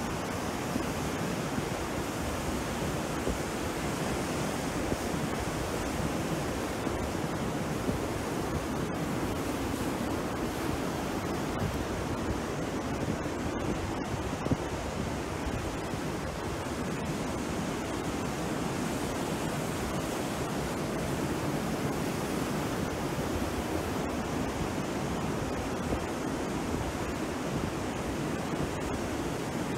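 Surf from rough sea breaking on a beach: a steady, unbroken wash of noise, with wind rumbling on the microphone.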